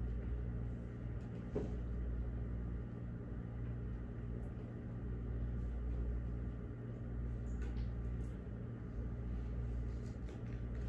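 A steady low machine hum with no speech over it, and a faint tap about a second and a half in.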